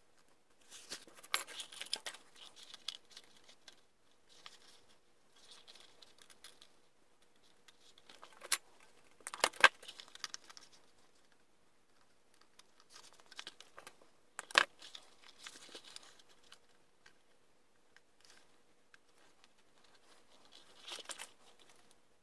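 Workbench handling noises: bursts of rustling and crinkling as a plastic arm piece and tape are handled, with thin metal rods and wire clinking, and a few sharp clicks, the loudest about nine and a half seconds in.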